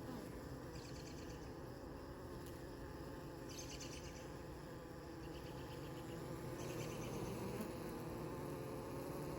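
Honeybees buzzing at a hive entrance, a steady hum, with short high chirping trills recurring every second or two.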